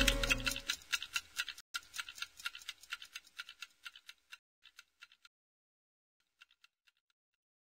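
Clock ticking sound effect, about four ticks a second, fading away over the first five seconds while background music dies out at the start; near silence after.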